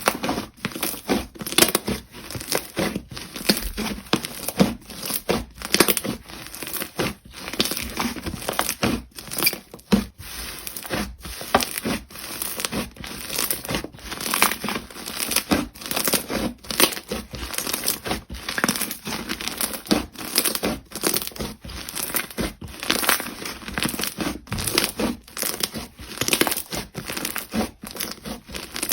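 Hands squishing, poking and stretching jelly slime, giving a dense, continuous run of sticky crackles and pops.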